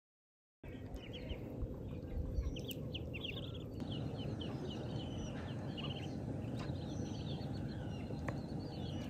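Birds chirping and calling over a steady low background noise, starting abruptly about half a second in.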